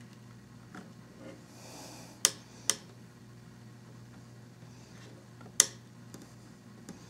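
Sharp clicks as a component on a PC motherboard is pressed down into place: two close together a little over two seconds in, then a louder one about five and a half seconds in. A faint steady hum runs underneath.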